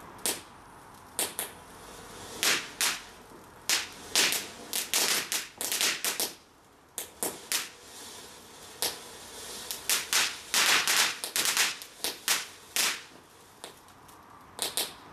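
Ground fountain firework spraying sparks, with sharp crackling pops at irregular intervals, sometimes several in quick succession, over a steady hiss.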